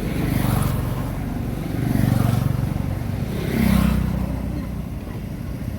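Low engine rumble of passing road vehicles, swelling three times as they go by.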